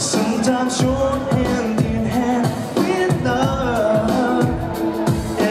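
A man singing a pop song live into a microphone over amplified band music with a steady beat of about two drum strokes a second.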